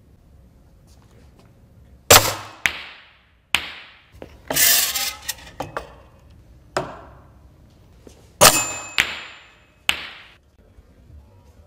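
A series of sharp metallic clangs and knocks from a metal demonstration rig, about seven in all. The loudest come about two seconds in and again about eight and a half seconds in, and some ring on briefly.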